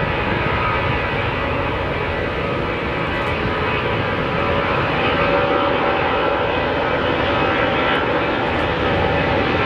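Four CFM56 turbofans of an Airbus A340-300 at takeoff thrust during the takeoff roll: a steady jet rumble with thin whining tones above it.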